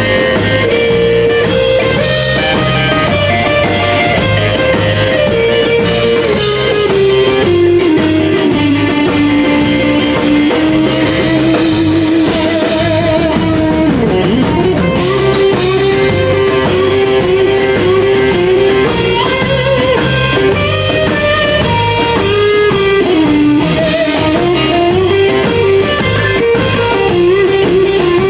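Live blues-rock band: a Stratocaster-style electric guitar plays a lead line of long held notes with string bends and vibrato over a steady drum-kit beat. A deep bend dips and returns about fourteen seconds in.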